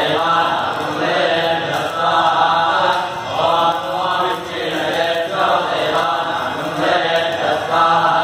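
A group of priests chanting Vedic Sanskrit mantras in unison for a Rudra homa. The recitation is continuous and rhythmic, the voices moving up and down between a few pitches in short phrases.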